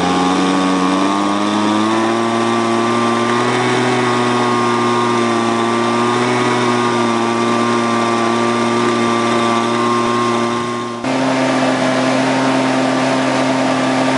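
Leaf-blower engine climbing to full throttle over the first couple of seconds, then running steadily at full speed while blowing air down a flexible hose to a drywasher. About eleven seconds in the note changes abruptly to a different steady engine note.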